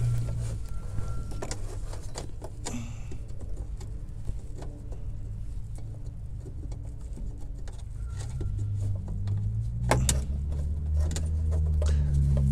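H11 LED bulb being worked into a fog light housing by a gloved hand behind the bumper: scattered clicks, taps and rustling of plastic and glove, with a sharper click about ten seconds in. Under it runs a low steady rumble that swells in the last few seconds.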